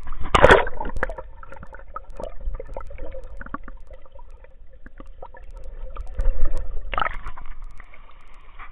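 Seawater heard with the camera held under the surface: a loud splash as it goes under about half a second in, then muffled gurgling and crackling, and another splash around six to seven seconds in as it comes back up.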